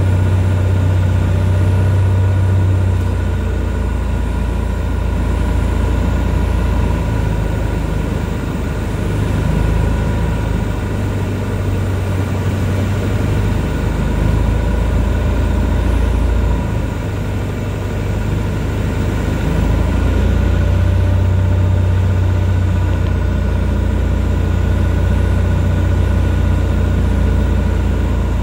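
Van's RV-10 light aircraft's piston engine and propeller droning steadily on final approach, heard from inside the cabin, with a deep hum and a few steady higher tones. The drone eases briefly twice, about eight and seventeen seconds in, then comes back up.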